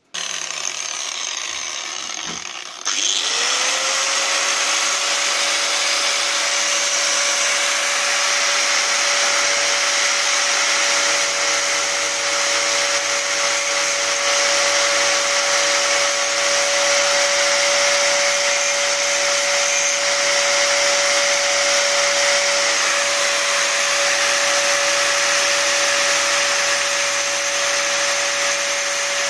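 Electric angle grinder with a thin cutting disc running and grinding the bitting profile into a metal key blank. About three seconds in it gets louder and speeds up to a steady high whine, which then holds with a constant hiss of grinding.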